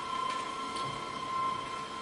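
Factory machinery running: a steady whine made of several held tones over a continuous mechanical noise, with a few faint clicks in the first second.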